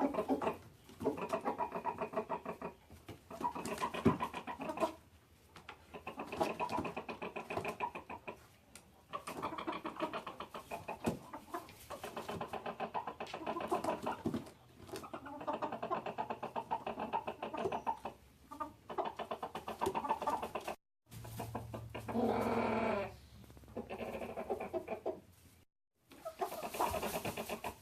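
Chickens in a coop giving loud, rapid clucking calls in repeated bouts of one to three seconds with short pauses between them. The keeper takes the racket to follow a hen laying an egg.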